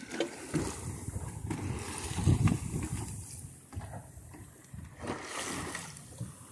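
Water rushing and splashing along the hull of a small wooden sailboat under way in a chop, rising and falling in irregular surges, loudest about two seconds in.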